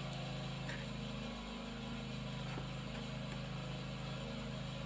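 A steady low machine hum, like an engine running at idle, under faint room tone.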